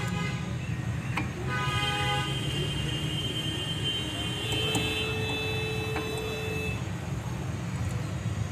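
A vehicle horn sounds for a few seconds, starting about a second and a half in, over a steady low rumble of vehicles, with a few sharp clicks.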